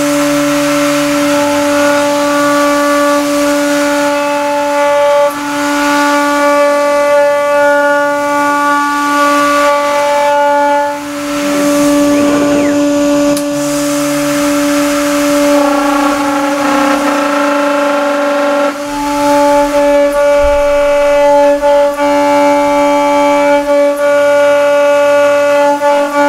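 CNC machine milling an 8 mm aluminium plate with a 6 mm single-flute end mill: a loud, steady high whine from the spindle and cutter, its overtones changing now and then as the cut moves, over a constant hiss.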